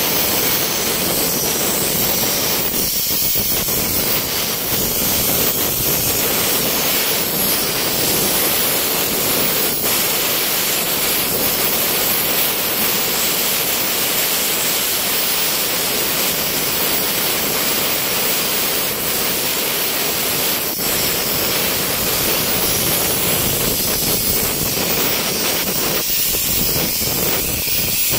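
Plasma torch on a CNC gantry cutting machine cutting through steel plate: a loud, steady hiss of the plasma arc and gas jet.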